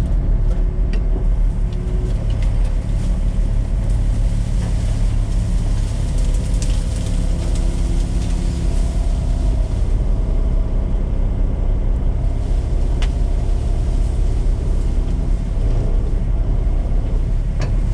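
Peterbilt dump truck's diesel engine running with a steady low rumble while the dump body is raised, with a few light clicks scattered through.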